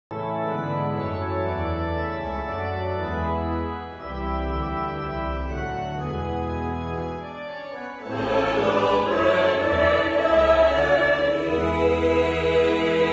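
A hymn opening on held chords over a deep bass; about eight seconds in, a mixed choir comes in louder and fuller, singing.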